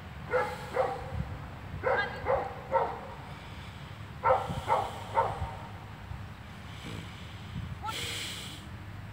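A dog barking in short runs: two barks, then three, then three more, each about half a second apart. Near the end comes a short burst of noise.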